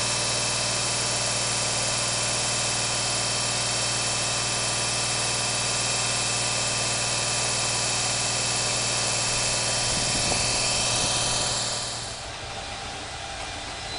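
JR Freight EF210 electric locomotive standing with its equipment running: a steady low hum under a strong high whirring hiss, like an engine. About two seconds before the end the sound drops away sharply.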